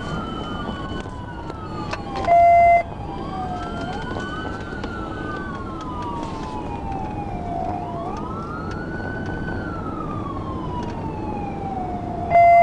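Police car siren in wail mode, slowly rising and falling about every three and a half seconds over steady road noise, heard from inside the pursuing patrol car. Twice a loud half-second beep cuts in, about two and a half seconds in and again at the end.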